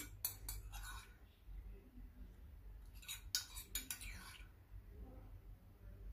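A spoon scraping and clinking against a small bowl as tomato sauce is spooned out of it, in two short spells of quick clicks: one at the start and another about three seconds in.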